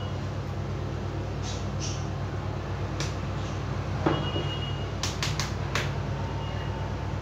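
Realme 1 smartphone casing being pried open by hand, giving a few sharp clicks as its clips let go: one about three seconds in, another a second later, and a quick cluster of three or four near the two-thirds mark. A steady low hum runs underneath.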